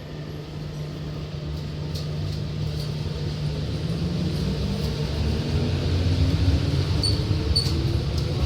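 A vehicle's motor running and speeding up: a low rumble that grows steadily louder, with a whine climbing in pitch.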